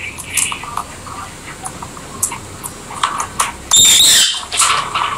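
Rosy-faced lovebirds chattering in short, scattered chirps, with two loud, high-pitched calls close together about four seconds in.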